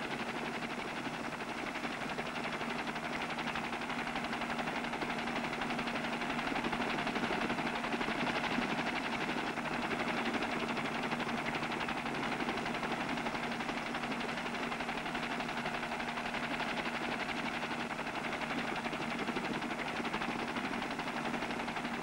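Steady hiss with a constant low hum, no speech and no distinct events.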